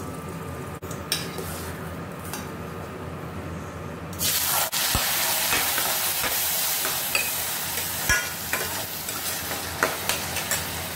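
Whole cloves and cardamom frying gently in hot ghee in a stainless steel pan, with a few small clicks. About four seconds in, soaked rice goes into the hot ghee and a loud sizzle starts, with a spatula scraping and stirring the rice against the pan.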